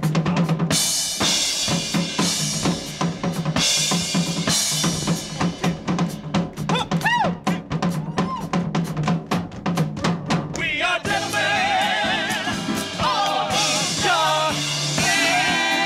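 Live drum kit playing a fast percussion break of rapid snare and bass-drum strokes with cymbal crashes. About eleven seconds in, the band comes back in with long, wavering held notes over the drums.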